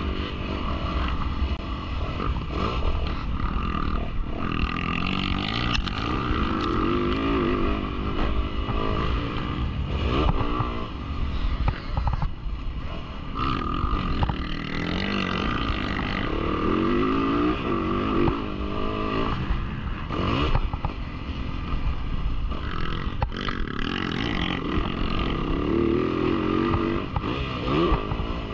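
A Yamaha YZ450F four-stroke motocross bike ridden hard around a dirt track, its engine pitch rising and falling again and again as it revs out and backs off. Wind buffets the microphone throughout.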